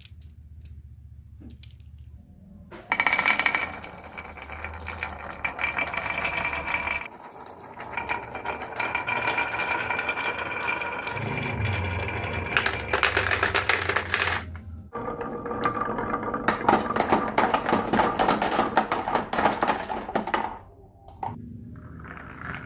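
Marbles rolling and clattering down a marble run: a dense, rapid rattle of clicks with a ringing tone, in several long runs with short breaks between them, starting about three seconds in and dying away near the end.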